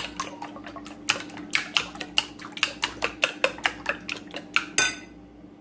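Eggs and milk being beaten in a bowl for French toast, the utensil clicking against the bowl about five times a second, then stopping abruptly about five seconds in. A faint steady hum lies underneath.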